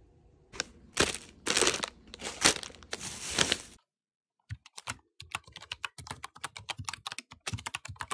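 Plastic food packaging crinkling and rustling in several loud bursts. After a sudden cut it gives way to a fast, uneven run of short light clicks and taps.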